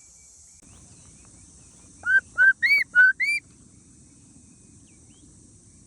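A myna giving five quick whistled notes, each rising and falling, about two seconds in, over a steady faint high insect buzz.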